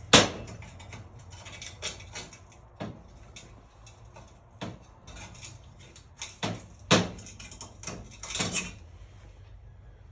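Hand tools knocking and scraping on metal while prying at a muffler's stuck old centerpiece, in scattered sharp clanks. The loudest knocks come right at the start and about seven seconds in, with a quick cluster near the end.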